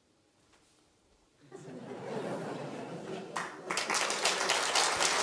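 Snooker crowd reacting: a swell of crowd noise about a second and a half in, then the audience breaks into applause and claps steadily through the rest.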